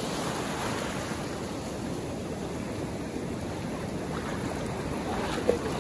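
Shallow surf washing over the sand at the water's edge, a steady rush of breaking foam.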